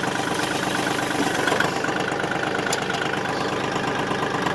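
Compact tractor's engine running steadily while the tractor is driven and steered.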